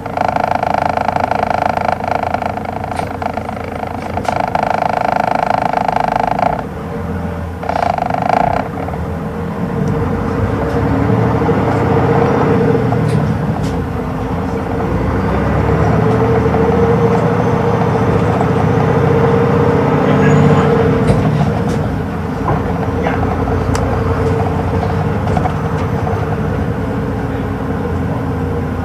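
Hino Rainbow II bus's straight-six diesel engine running under way, heard from inside the bus; the engine note grows louder and rises a little as the bus pulls along. For the first six seconds or so, and again briefly at about eight seconds, a steady high-pitched tone sounds over the engine.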